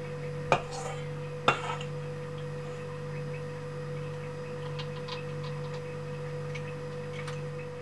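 A metal spoon clicks sharply twice about a second apart while melted chocolate is being spooned into a clear plastic egg mould, followed by a few faint light ticks, over a steady low hum.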